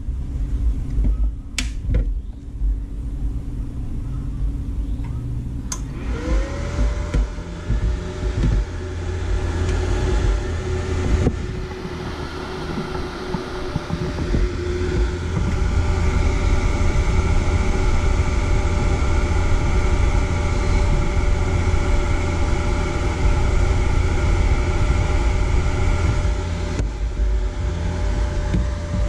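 A few clicks, then a small motor spins up about six seconds in and runs with a steady hum over a constant low rumble.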